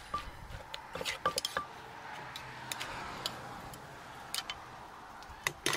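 Scattered light taps and clicks of kitchen utensils, a couple of sharper ones near the end, over a faint steady background noise.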